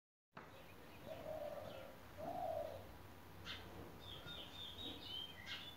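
Faint birdsong. Two low hooting coos come about a second apart, then short high chirps and whistles from small birds.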